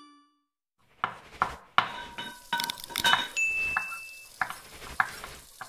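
Kitchenware sound effects for a logo sting: a quick run of clinks and clatters of dishes and utensils starting about a second in, with a bright ding held for about a second past the middle.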